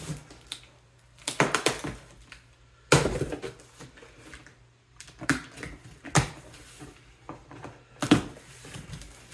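Unboxing noises: packaging rustling and the stool's parts being handled, in a few separate bursts of crinkling and clattering a second or two apart.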